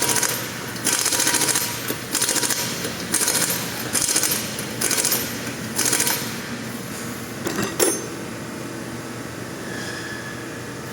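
Pneumatic impact wrench rattling in about six short bursts, one every second or so, typical of running wheel lug nuts on. A single sharp clack comes a little later, over a steady hum of shop machinery.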